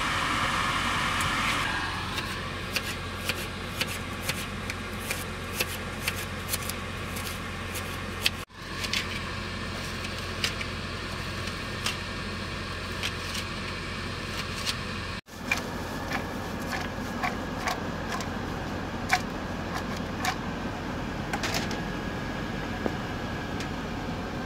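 Kitchen knife chopping on a plastic cutting board, cutting onion and then sausage, in short irregular taps about one or two a second over a steady low hum. The sound cuts out briefly twice.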